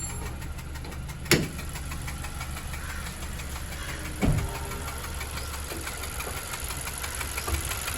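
Honda Civic engine idling steadily, under investigation for an abnormal noise. Two sharp knocks cut through it, one about a second in and a heavier thud a few seconds later.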